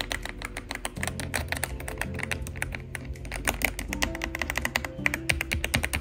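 Rapid typing on an AULA F75 mechanical keyboard with pre-lubed Reaper switches, a fast run of sharp key clicks, very clicky. Background music plays underneath.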